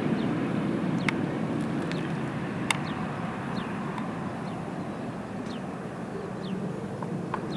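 Jet engine rumble from a Boeing 737-800 after landing, slowly fading away. Several short, high, falling bird chirps and a few sharp clicks sound over it.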